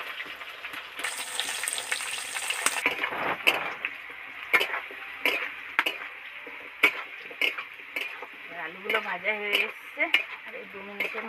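Potato pieces frying in hot oil in a kadai, a steady sizzle, with a metal spatula knocking and scraping against metal about once a second as they are stirred.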